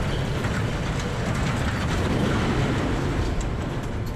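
Steady rumbling noise of a steel conveyor gallery and its support trestles collapsing after explosive cutting charges.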